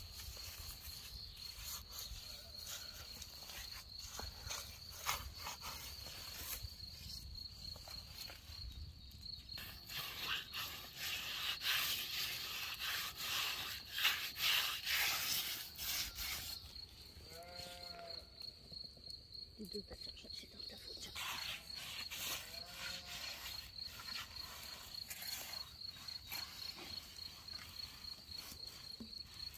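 Hands rubbing and working a spice paste into a whole raw lamb, the wet handling noise loudest midway. A cricket chirps steadily in the background, and a sheep bleats a few times past the middle.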